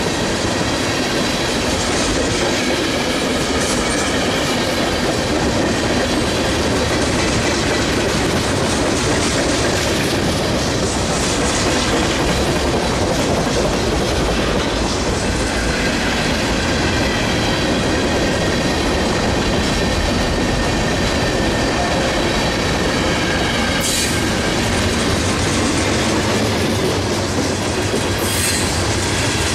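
Freight cars rolling past at close range: a steady rumble of steel wheels on the rail with clickety-clack over the joints and a faint high wheel squeal. Two sharp clacks come near the end.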